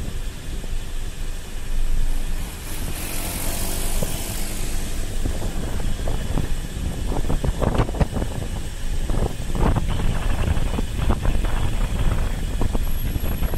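Riding noise from a camera on a moving motorcycle: wind rumbling across the microphone over road and engine noise. A brief hiss rises about three seconds in, and the rumble surges unevenly in the second half.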